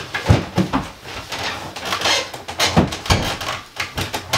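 A chest of drawers being shifted and manoeuvred, giving a string of irregular knocks and bumps.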